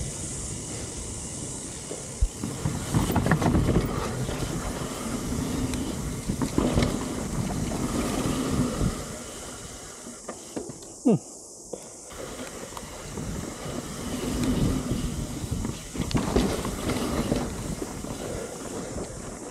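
Mountain bike riding on a dirt trail: tyre and ground noise that surges and eases, with wind on the action camera's microphone. A quieter stretch about ten seconds in holds a short falling tone.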